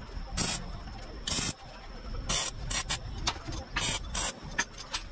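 Electric arc welding: a string of short tack welds, each a brief burst of hissing crackle about a third of a second long, roughly one a second, over a steady low hum.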